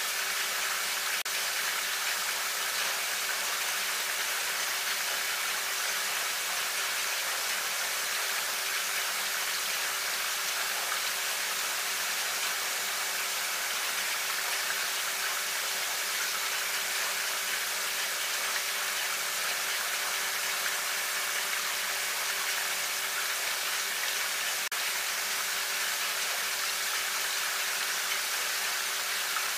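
Steady, even hiss with a faint steady hum underneath and no distinct events.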